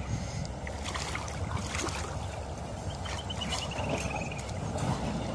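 River water sloshing around people wading and swimming, with wind rumble on the microphone and a few light splashes. About three seconds in, a bird gives a quick trill that falls slightly in pitch.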